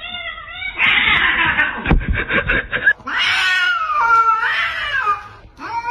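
A cat yowling in long, wavering drawn-out calls, with a short noisy patch and a few knocks in the first half.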